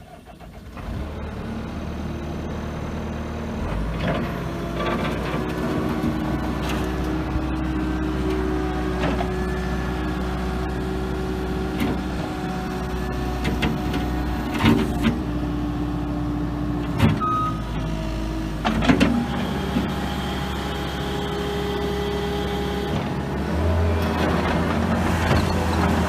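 The diesel engine of a 2017 Case TV380 compact track loader running steadily, with a few sharp clanks near the middle. It grows louder near the end as the machine is driven on its rubber tracks.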